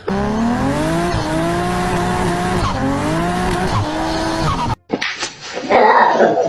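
A cat yowling in one long, drawn-out wail whose pitch wavers slowly up and down, cut off abruptly after nearly five seconds; a different, noisier sound follows near the end.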